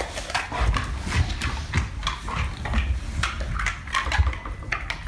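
A dog's claws clicking and paws thumping on a hard floor as it prances and turns about, a quick, irregular run of clicks.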